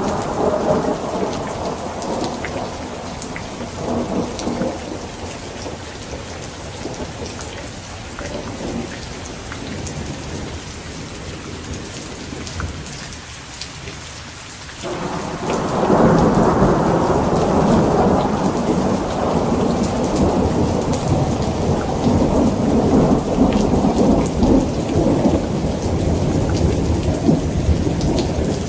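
Steady rain with rolling thunder. One long rumble dies away over the first half, then a louder roll of thunder builds in about halfway through.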